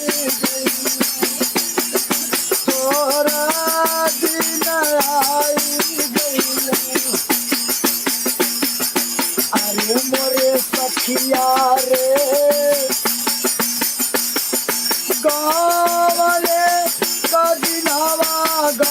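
A man singing a melody in phrases to a jingling hand percussion instrument shaken or struck in a fast, steady rhythm; the jingling runs on between the sung lines.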